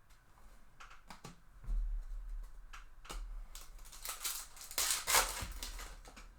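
Hands working with trading cards: scattered clicks and taps, then, about four seconds in, a burst of crinkling from a foil card-pack wrapper being torn open.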